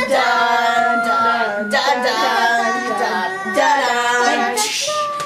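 Music: a high singing voice carrying a melody in long held notes.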